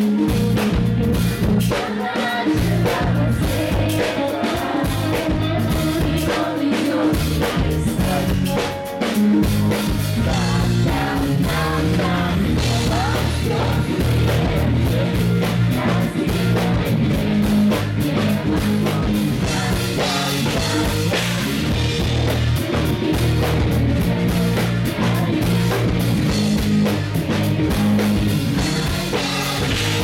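Amplified pop-rock music with drums, bass and guitar, and a woman singing the lead into a microphone over a concert PA. The low end fills out about nine seconds in.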